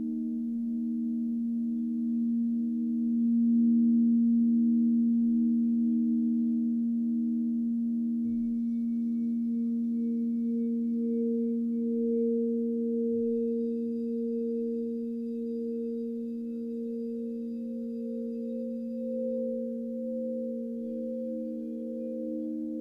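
Several crystal singing bowls ringing together, played by circling a wand around their rims: overlapping sustained tones, one with a pulsing wobble. About halfway through, a higher bowl's tone swells in and keeps on.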